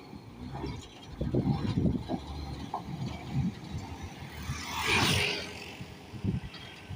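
Road vehicle noise: irregular low rumbling, with one vehicle's hiss swelling and fading as it passes about five seconds in.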